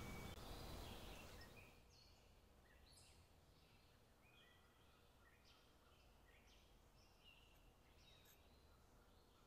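Near silence: a faint hiss that fades out about two seconds in, then faint, scattered short high chirps.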